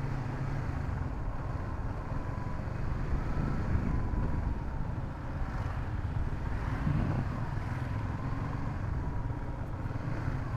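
Honda Supra GTR 150 motorcycle's single-cylinder engine running steadily as the bike is ridden at low speed, with a steady low rumble and a faint thin whine on top.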